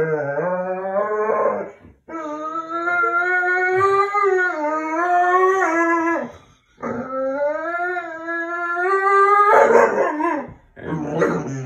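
Dog howling: three long, drawn-out howls that waver up and down in pitch, with short breaks between them, turning into shorter, rougher yowls near the end.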